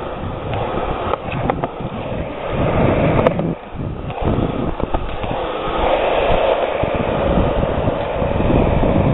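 Steady rumbling noise of wind buffeting the camera microphone during outdoor BMX riding, with a few sharp clicks and knocks.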